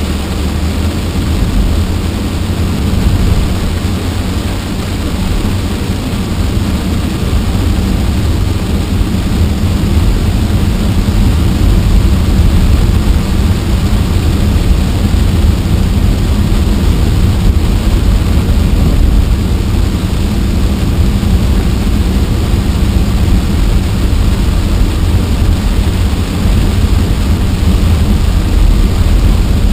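Steady noise inside a car driving through heavy rain: a deep, loud rumble of road and engine with the hiss of rain on the glass and body.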